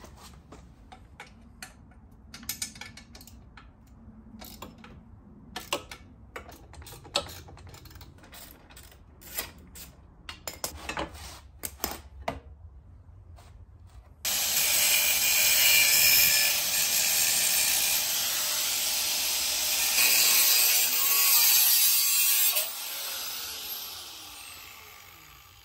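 Socket ratchet clicking in short runs as the scooter's exhaust mounting bolts are undone. About 14 seconds in, an angle grinder with a cut-off wheel starts suddenly and runs loud, cutting a section out of the lower bend of the steel two-stroke expansion-chamber exhaust, then winds down with a falling whine near the end.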